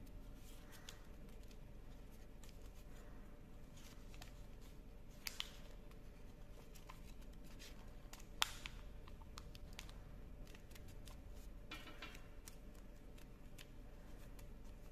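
Origami paper being folded and creased by hand: faint rustling and crinkling with a few sharp paper crackles, the loudest about five and eight seconds in.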